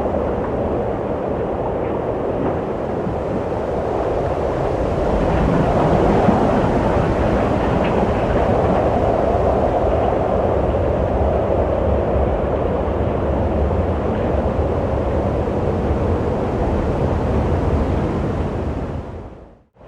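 Wind blowing as a steady low rushing noise that swells a little about six seconds in, then fades out to near silence just at the end.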